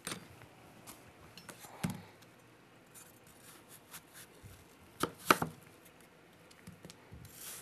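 Kitchen knife cutting through an apple onto a wooden cutting board: a few scattered knocks, the loudest pair about five seconds in.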